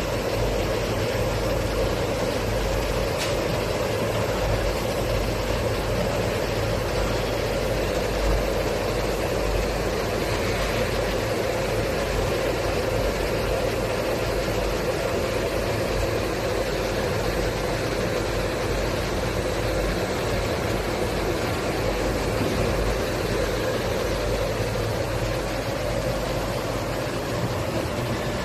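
Steady hum of running factory machinery, an even noise with a strong midrange band and a low hum under it, unchanging throughout.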